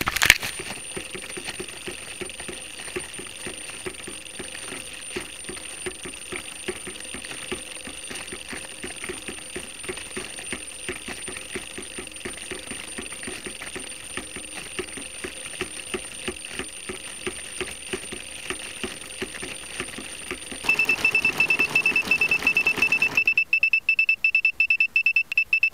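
A crashed quadcopter's locator buzzer beeping. A faint steady high tone with fast ticking gives way, about two-thirds of the way through, to loud, rapid, piercing beeps.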